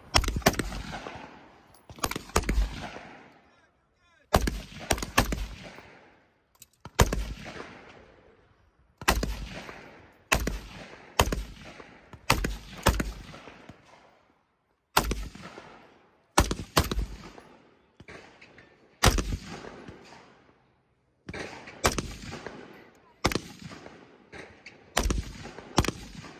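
Repeated gunshots on a shooting range, fired singly and in quick pairs or triplets every second or two. Each crack is followed by a long echo that dies away.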